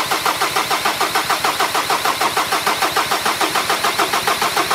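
Reconditioned Ford Ranger 2.2 TDCi four-cylinder diesel being cranked over on the starter with its injectors unplugged, so it turns without firing. The cranking makes an even pulsing of about six compression strokes a second and is done to build oil pressure in the dry, newly fitted engine before its first start.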